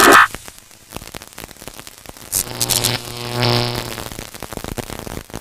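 Logo intro sound effect: a loud noisy burst at the start, then dense crackling static, with a low buzzing hum swelling in the middle.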